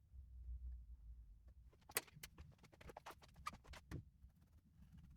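Faint scattered clicks and light taps of small items being handled, over a low hum in the first second.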